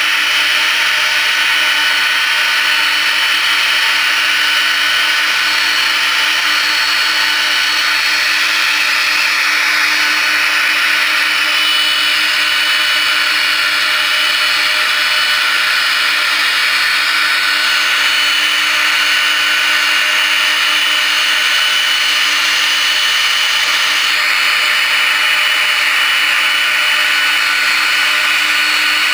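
Boeing 767's jet engines running steadily: an even, loud rush of noise with a high whine made of several steady tones.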